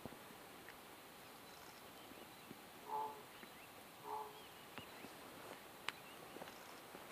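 Northern raven giving two short, harsh calls about a second apart, near the middle, with a few faint clicks around them.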